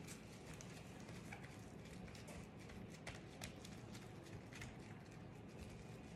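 Faint, irregular soft pats and taps of gloved fingers pressing and flattening a round of bread dough on a granite countertop, over a low steady hum.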